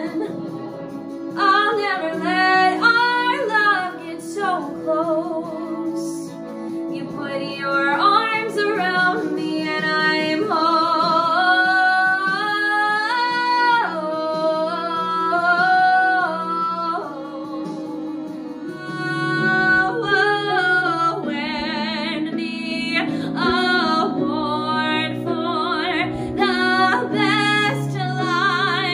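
A woman singing solo in a pop/country style over instrumental accompaniment, with long held and bending notes. About two-thirds of the way through it cuts to a different song.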